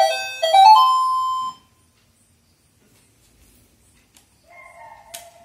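Children's toy learning laptop playing a short electronic jingle of beeping notes as its keys are pressed; the jingle stops about a second and a half in. Near the end a fainter electronic tone sounds again, with a single click.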